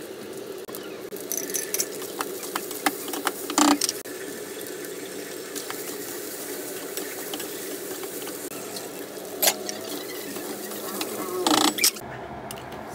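Black spatula scraping and stirring cooked rice in a stainless steel pan, stir-frying it, with a few sharper knocks of the spatula against the pan. A steady low hum runs underneath.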